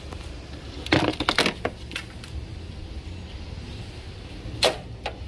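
Sharp clicks and knocks of small hard parts being handled on a car's plastic engine cover, a brass-fitted boost control solenoid among them. There is a quick cluster about a second in and one more knock near the end, over a low steady hum.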